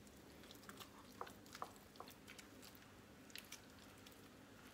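Faint squelching and small sticky clicks of bare hands squeezing and scooping soft butter in a bowl.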